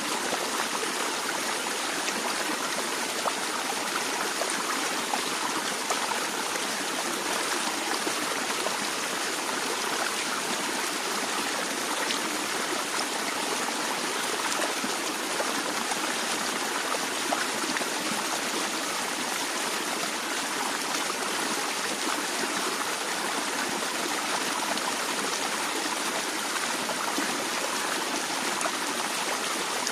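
A shallow stream flowing steadily, with a constant splashing and babbling rush of water.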